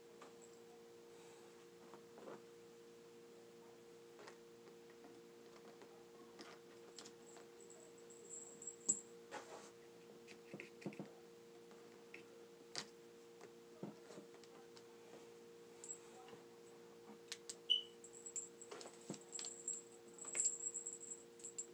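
Scattered faint clicks and taps, with a few sharper ones later on, from a thin rod being worked inside a paintball gun barrel to clear jammed, broken paintball pieces, over a steady low hum.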